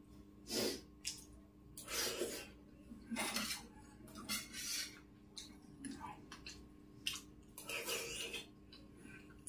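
A steel spoon scraping and clinking against a stainless steel plate and bowl in several short bouts while scooping up rice and dal.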